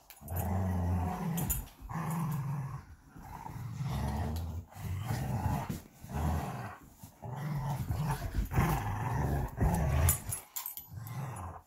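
Belgian Malinois growling in play during rough tug-of-war, a string of low growls broken by short pauses.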